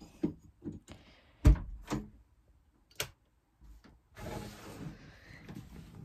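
Several knocks and clicks of handling and movement, the loudest a low thump about a second and a half in, followed by a stretch of rustling.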